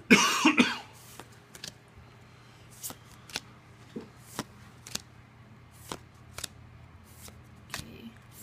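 Pokémon trading cards being flicked one by one from the front of a hand-held stack to the back, each move a short crisp snap about every half second. A louder rustling burst comes in the first second.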